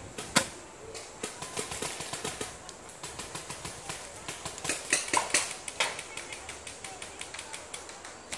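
Paintball markers firing in a fast, irregular string of sharp pops. The loudest shot comes about half a second in, and a dense burst of shots comes around five seconds in.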